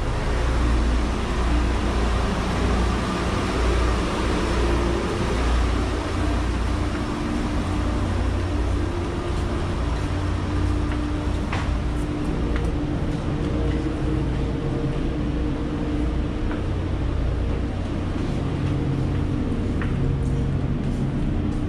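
Steady machinery and ventilation hum inside a Pohang-class corvette's interior spaces: a low drone with a few held tones over an even rush of air, and a few faint clicks.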